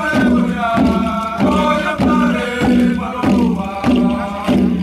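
A group of voices chanting in unison in long held notes over a sharp, steady beat of about two strokes a second: the singing and beat for a Papua New Guinean rooster dance.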